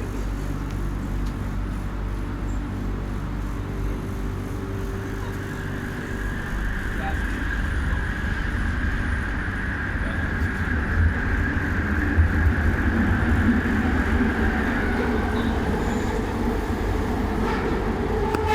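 LRT train running, heard from on board: a steady low rumble of wheels on track, growing louder about six seconds in, with a whine that comes in partway through and fades near the end.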